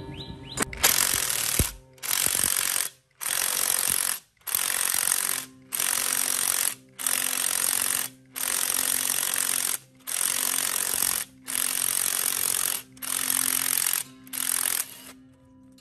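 Cordless impact wrench hammering in about eleven repeated bursts of roughly a second each, driving a three-jaw gear puller's forcing screw to draw a stuck drum off a gearbox shaft.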